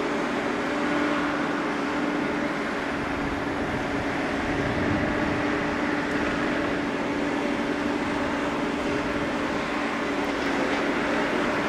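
Pacific National 90 class diesel-electric locomotives hauling a coal train, their EMD 16-710 two-stroke V16 engines giving a steady drone with a constant hum that holds the same pitch throughout.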